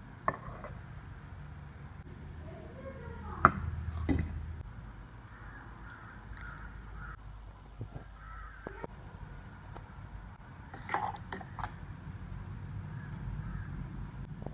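Crows cawing now and then in the background over a low steady hum, with a few sharp knocks, the loudest about three and a half seconds in.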